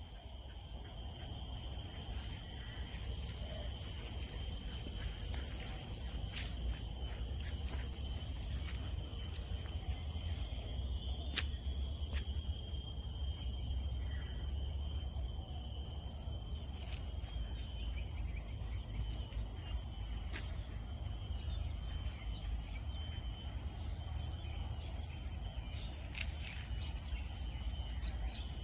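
Insects chirping: a steady high-pitched buzz throughout, with a pulsed trill that comes and goes in runs of a few seconds. A low rumble runs underneath.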